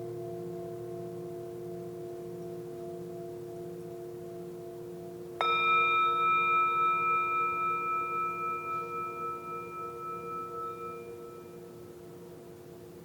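Singing bowls ringing. A bowl is struck once about five and a half seconds in, and its ring pulses as it fades over about six seconds, over the steady lower hum of bowls still sounding.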